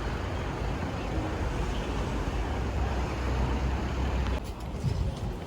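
Steady low rumble of vehicle noise. The deep part drops away about four seconds in, and a few light knocks follow.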